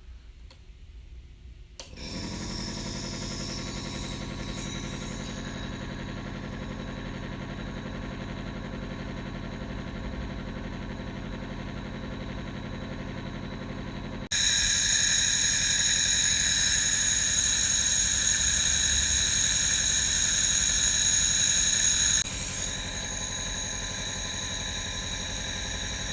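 An electric nebulizer machine switches on about two seconds in and runs with a loud, steady motor hum. About halfway through it suddenly gets louder and brighter, then eases back a little near the end.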